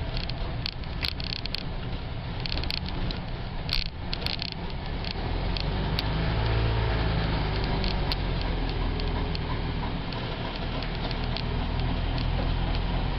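1972 VW bus's air-cooled flat-four engine running steadily with a low rumble that swells a little about six seconds in. Sharp clicks and rattles sound over it during the first few seconds.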